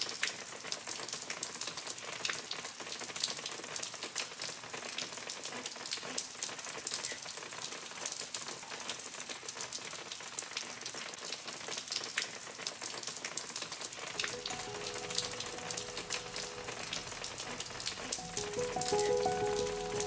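Steady rain falling, with many small drop ticks. Soft music with held notes comes in about two-thirds of the way through.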